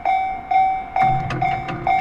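Japanese railway level-crossing alarm ringing its repeated warning tone, about two strikes a second. About a second in, the low rumble of an approaching train joins it.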